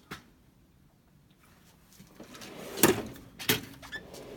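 Snap-on tool box drawers sliding on their runners: a single click at the start, then from about halfway a sliding rumble broken by three sharp metal clunks as drawers shut and open.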